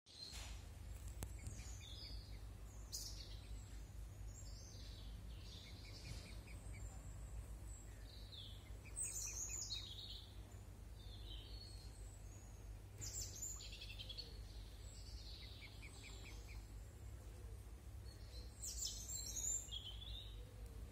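Small birds chirping and singing in short high phrases and trills, scattered throughout and busiest near the middle and near the end, over a steady low rumble.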